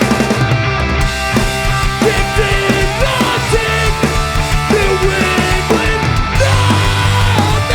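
Hardcore punk band playing live: distorted electric guitars, bass and drums at full volume, with a steady driving drum beat.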